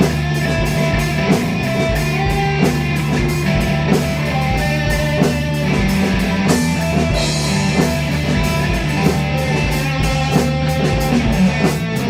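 Psychedelic rock jam: guitar over a steady drum-kit beat, with a low bass note droning underneath.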